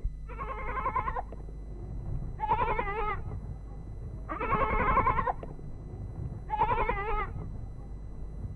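Livestock bleating: four wavering calls, each about a second long, roughly two seconds apart, over a steady low hum.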